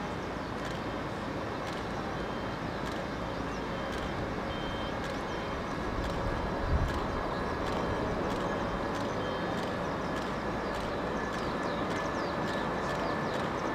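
Boeing 747-400F freighter's four Rolls-Royce RB211 turbofans at takeoff power during the takeoff roll: a steady, distant jet rumble that grows a little louder about six seconds in. A brief low thump about seven seconds in.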